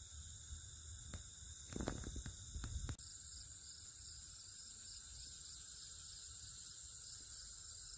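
Steady, high-pitched trilling of prairie insects. In the first three seconds a few soft taps and rustles come from fingers handling a flower stalk.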